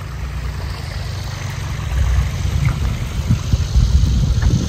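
Small engine of a paddy-field water pump running steadily at full power. From about two seconds in, an irregular low rumble joins it.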